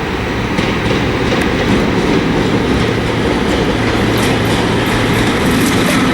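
Freight train rolling past at speed, a steady loud rumble of wheels on rail with clicks of the wheels over the rail joints.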